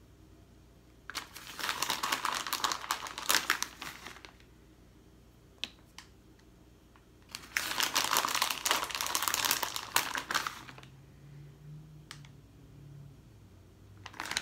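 Plastic bag of shredded cheese crinkling in two bursts of about three seconds each as it is handled and shaken to pour the cheese out.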